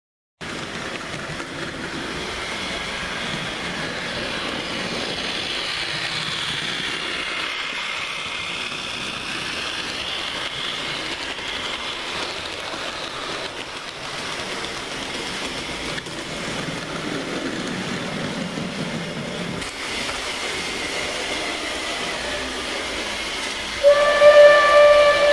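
Model train running on the layout's track: a steady rumbling hiss of wheels and motor with a few faint clicks. Near the end a loud held pitched tone begins.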